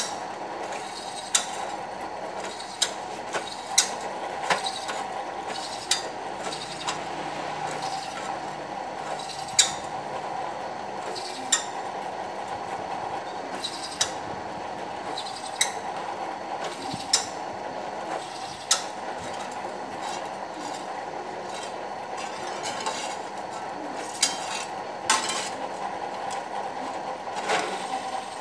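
Bench drill press running with a steady hum while holes are drilled in a round metal plate, with sharp metallic clicks every second or two.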